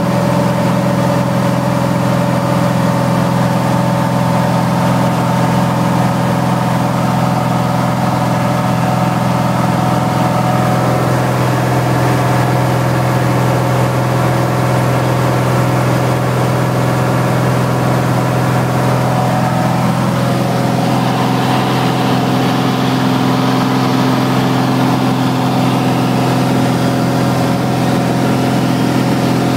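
Single-engine light aircraft's piston engine and propeller droning steadily in flight, heard from inside the cabin. The tone shifts slightly about two-thirds of the way in.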